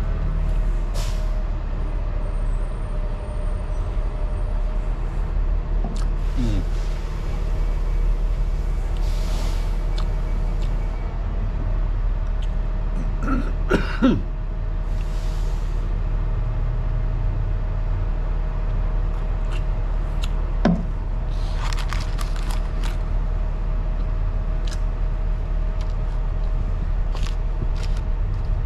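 Steady low rumble with a faint steady hum underneath, with scattered crinkles of a paper food wrapper and a sip from a soda can about halfway through.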